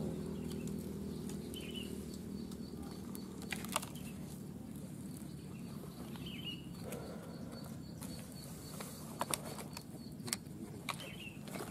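Fishing tackle being handled: rustling and a few sharp clicks of a clear plastic tackle box, a pair about three and a half seconds in and several more near the end. A few faint bird chirps are heard.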